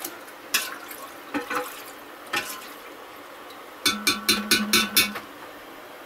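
Metal spoon stirring liquid in an enamel pot and clinking against its side: a few scattered clinks, then a quick run of about seven ringing strikes near the end.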